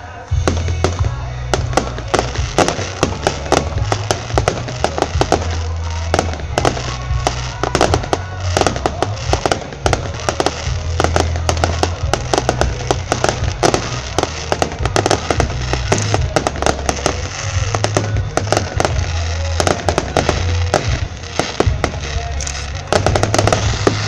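Fireworks display in full barrage: a dense, unbroken run of bangs and crackles from bursting shells, starting suddenly just after the beginning, with music playing underneath.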